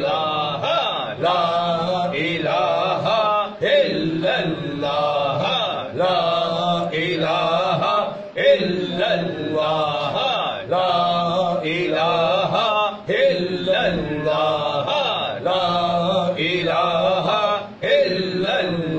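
Male voices chanting a repetitive devotional zikr, short phrases following one another about once a second over a steady low drone.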